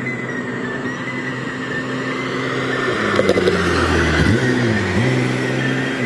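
BMW 635CSi's straight-six engine running steadily, then revving, its pitch dipping and climbing again a little past halfway.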